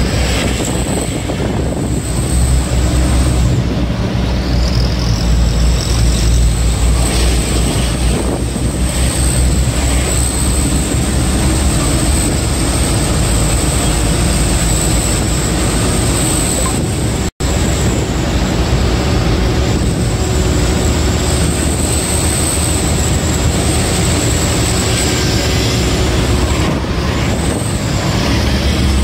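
Steady truck engine and road noise heard from inside the cab while cruising on a highway, with the audio cutting out for an instant about 17 seconds in.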